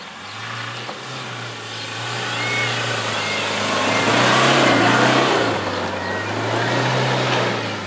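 Mahindra Scorpio 4x4 engine pulling under load as the SUV climbs a muddy dirt slope, with tyre and dirt noise from the wheels. It grows louder to a peak about halfway through as it passes close, then eases off as it climbs away.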